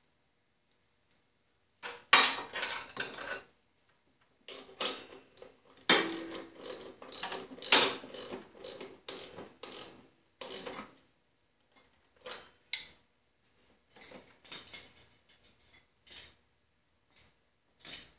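Ratchet wrench clicking in irregular bursts while the idler pulley bolt on a mower deck is tightened. The clicks grow sparser in the last few seconds.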